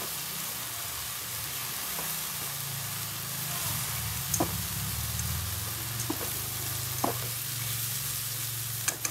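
Silkworms sizzling as they are stir-fried in a pan, turned with chopsticks that tap against the pan a few times.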